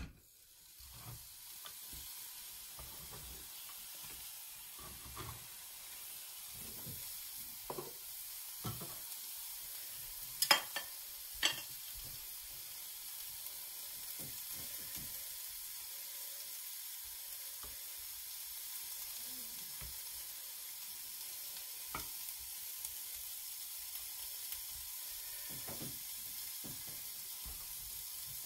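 Sliced red onion and red pepper sizzling steadily as they fry in a hot pan without oil. A few sharp knocks sound over it, the two loudest about ten and eleven seconds in.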